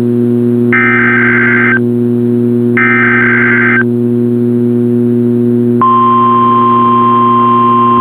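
NOAA Weather Radio Required Weekly Test: two warbling SAME digital header bursts, each about a second long with about a second between them, then about six seconds in the steady 1050 Hz Warning Alarm tone starts and holds. A constant low hum from the radio runs underneath.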